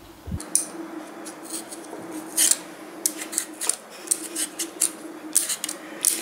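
Metal vegetable peeler scraping the skin off a raw potato in short, irregular strokes, about two to three a second.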